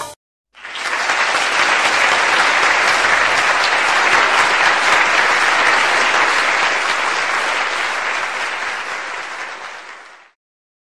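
Audience applauding at the end of a belly dance stage performance, starting about half a second after the music stops. The applause is steady, then fades and cuts off shortly before the end.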